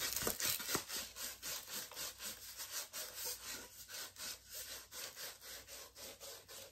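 Hands rubbing and working a rolled diamond-painting canvas: a rapid run of rubbing strokes, about four a second, slowly growing fainter.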